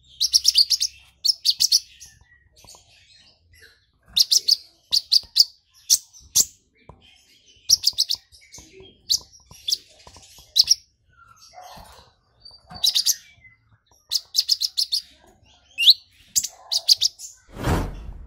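Caged male purple-throated sunbird singing in short, excited bursts of sharp high chirps and rapid ticking trills, a song the keeper says is filled with mimicked belalang emas (golden grasshopper) calls. Near the end there is a brief low flutter as the bird flies off its perch.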